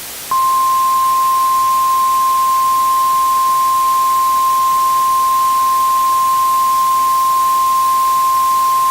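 Emergency Alert System attention tone for a Required Monthly Test: a single steady, loud tone that starts about a third of a second in and holds without change, over a constant hiss.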